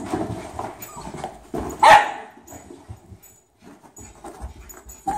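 Small dogs panting during excited play chasing a laser dot, with one short, loud bark about two seconds in.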